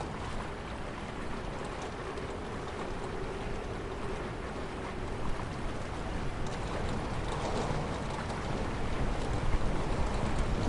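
River water rushing steadily, growing a little louder near the end.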